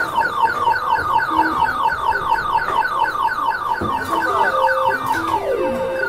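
Skee-ball arcade machine playing electronic beeping sounds: a fast, even run of high beeps, about seven a second, with short tunes of lower beeps over it and a falling tone near the end.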